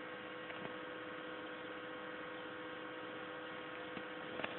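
Steady electrical hum with a faint hiss, holding two steady tones; a faint click about four and a half seconds in.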